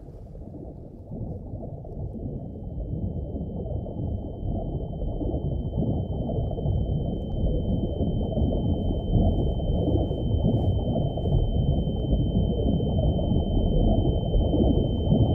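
Film sound-design drone: a low rumble that swells steadily louder. About two seconds in, a single steady high-pitched ringing tone joins it and holds.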